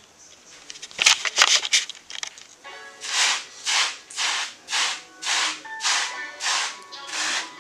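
Hard wave brush stroking through wet, shampoo-lathered short curly hair in a steady rhythm of swishes, about two a second. Before the brushing starts, about a second in, there is a short cluster of sharp clicks and knocks.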